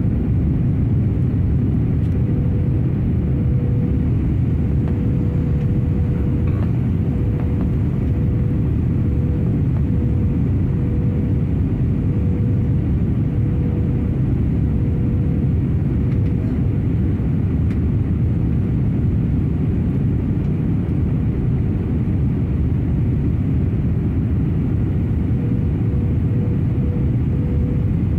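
Airbus A320 cabin noise on descent to land: a steady low rumble of the engines and airflow, with a faint steady hum held above it.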